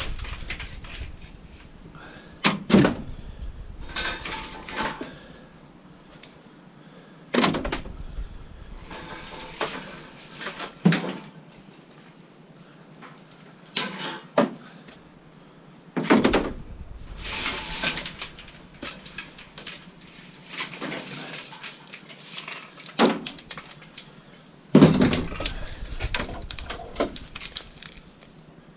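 Scrap metal being handled and thrown into a container: a series of metallic clanks and rattles every few seconds, with scraping and shuffling between them.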